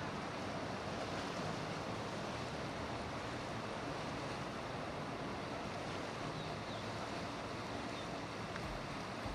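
Steady rush of river water and wind as a motor cruiser passes under way, churning a wake, with wind noise on the microphone.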